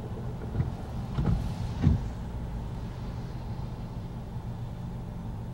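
Car engine idling, a steady low hum heard from inside the cabin. Three dull knocks come in the first two seconds, the third the loudest.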